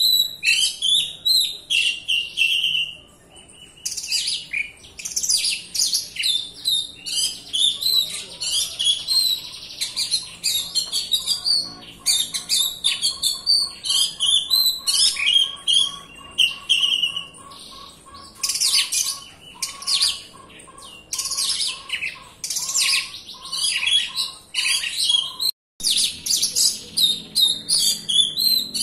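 Oriental magpie-robin (kacer) singing a dense, nearly unbroken run of varied high whistles, chirps and trills, with a short pause about three seconds in.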